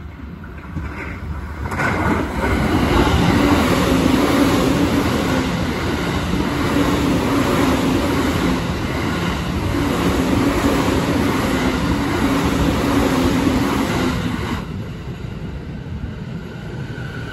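JR East E235-1000 series electric train passing through a station without stopping: a loud, steady rush of wheels on rail with a low hum, building over the first two seconds and cutting off fairly sharply after about twelve seconds as the last car clears. After that, a quieter hum with a faint whine as a second train moves along the nearer track.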